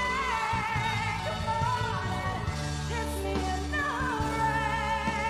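A woman singing a pop ballad with band accompaniment, holding long notes with vibrato, the longest one near the end.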